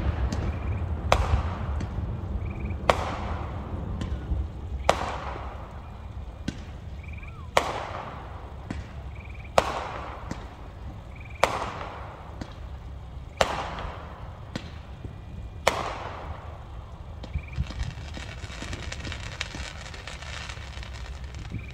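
Fireworks display: aerial shells bursting with sharp bangs about every two seconds, with smaller pops in between, giving way to a steady crackle near the end.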